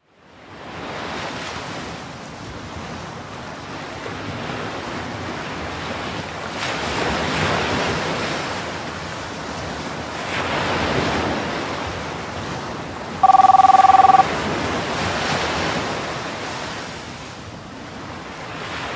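Ocean surf washing on the beach, swelling every few seconds, with wind on the microphone. About two-thirds of the way through, a telephone rings once for about a second: a rapid trilling ring of two steady tones.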